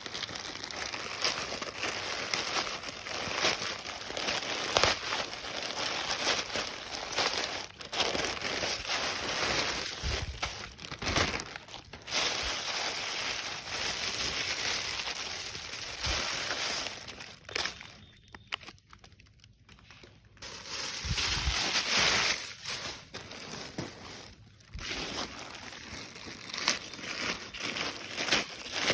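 Packaging being handled and unwrapped during a clothing unboxing, crinkling and rustling almost continuously, with a pause of about two seconds around two-thirds of the way through.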